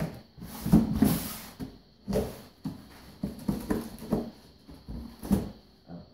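Shoe boxes being opened and handled: a series of short cardboard knocks and thumps, with a stretch of paper rustling about a second in.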